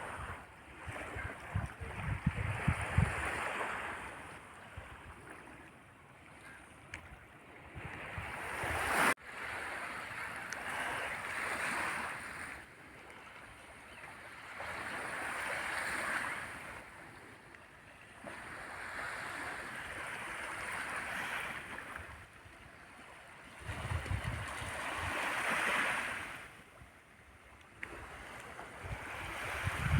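Small sea waves washing onto the beach, the rush swelling and fading every few seconds. Wind buffets the microphone now and then.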